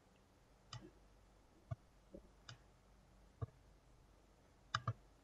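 Faint computer mouse clicks, about six or seven scattered irregularly, with a quick double click near the end.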